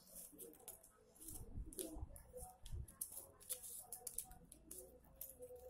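Faint clicking and rustling of paper or thin card being handled and folded by small hands, with a few soft low bumps about two seconds in.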